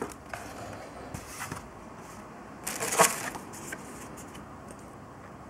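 Cardboard shoebox lid being lifted off and the tissue paper and printed card inside handled: scattered rustling and scraping of paper and cardboard, loudest about three seconds in.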